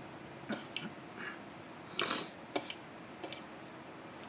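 A metal fork clicking and scraping against a plate as food is picked up, a few short sharp sounds spread across the few seconds with a longer scrape about two seconds in, and chewing in between.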